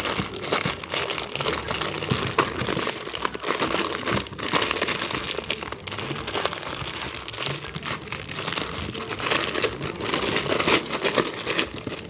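Clear plastic bag crinkling and rustling continuously as hands unwrap a circuit board from it, full of small sharp crackles.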